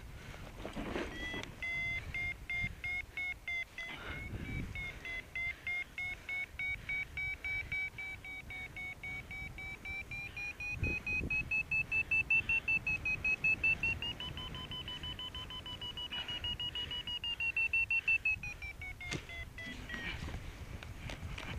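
Paragliding variometer beeping in a towed climb: a fast run of beeps whose pitch rises slowly and peaks about two-thirds of the way through, as the climb rate grows, then drops near the end as the climb eases.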